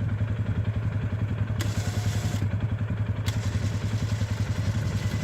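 Arctic Cat 450 ATV's single-cylinder engine idling with a steady, even pulse. A brief faint hiss comes about a second and a half in.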